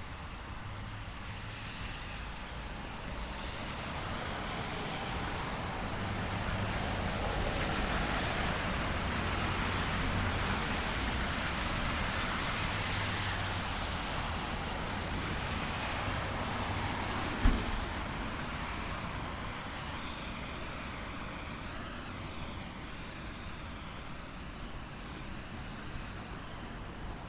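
A car passing on a wet street in steady rain, its tyre hiss swelling over several seconds and then fading. A single sharp knock comes about two-thirds of the way through.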